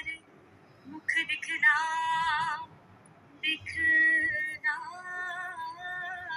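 A woman singing a Hindi-language song, two phrases each ending in long held notes with a wavering vibrato, separated by short pauses.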